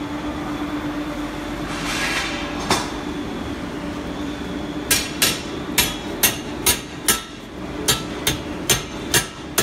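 Hand hammer striking twisted steel bars on a blacksmith's anvil: a steady run of sharp, ringing blows about two a second, starting about five seconds in, after a single knock a few seconds earlier.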